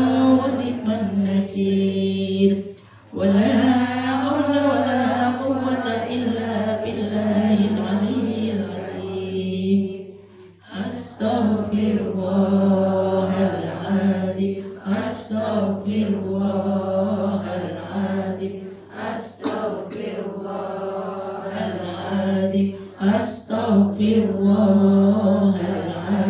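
A woman's voice chanting Islamic prayers in a melodic recitation through a microphone and loudspeaker, pausing briefly twice for breath. A steady low hum runs beneath it.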